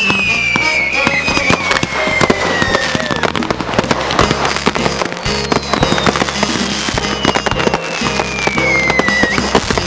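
Aerial fireworks going off in a dense barrage, with rapid bangs and crackling. Over them, a long whistle slowly falls in pitch and ends about three seconds in, and a second falling whistle runs from about five to nine seconds in.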